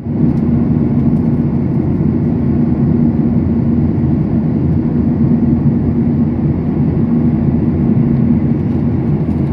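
Airliner cabin noise in flight: a steady, loud low drone with a constant hum underneath.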